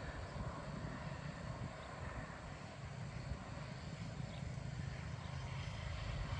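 Open-country ambience: a steady low rumble with a faint even hiss above it.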